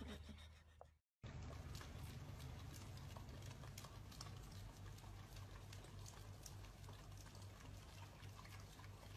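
Two dogs licking an ice cream cone: faint, wet, irregular licking clicks over a low hum, after a brief dropout about a second in.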